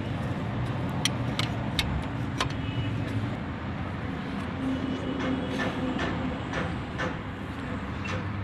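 Steady low rumble of a running vehicle engine with scattered sharp metallic clinks of tools and parts being handled, a cluster in the first few seconds and more a little over halfway through.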